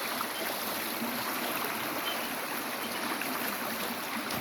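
Creek water flowing steadily, an even rushing noise from a current strong enough that a dog has to fight it upstream.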